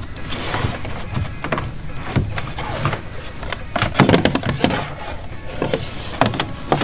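Irregular clicks, knocks and short scrapes of hand work fitting a bolt-on RailBlaza mount to a plastic kayak hull, the loudest cluster about four seconds in.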